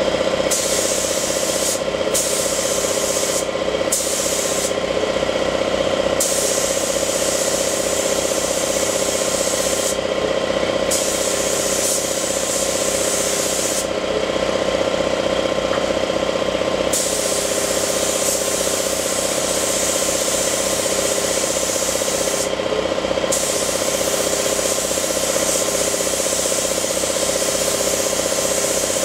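Air compressor running steadily, with a hiss of compressed air from the spray setup that is on most of the time and cuts out briefly several times.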